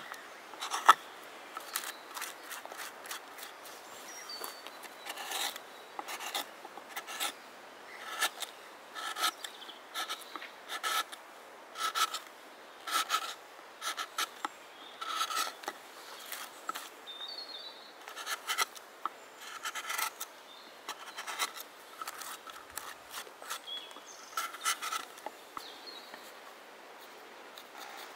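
Hand-held carving blade cutting wood out of the bowl of a birch kuksa: short scraping cuts about one a second with irregular gaps. The cuts stop a few seconds before the end.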